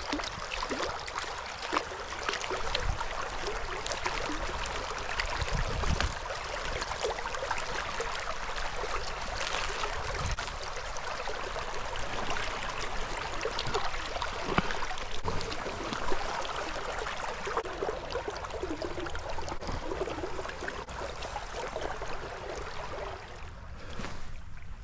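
Shallow creek water running over rocks: a steady rushing and babbling, with a few low thumps.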